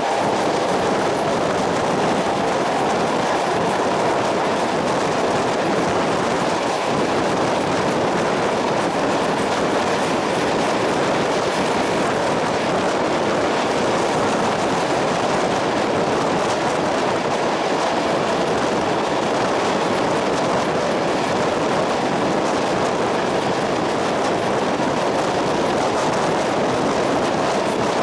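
Train wheels running on the track at a steady speed: an even running noise that holds at one level throughout.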